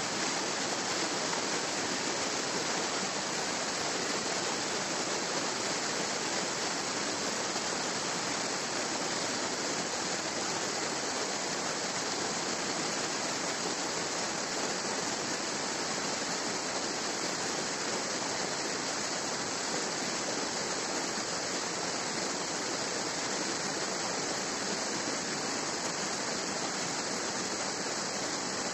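Steady rushing noise like running water, even and unbroken, with no single events in it.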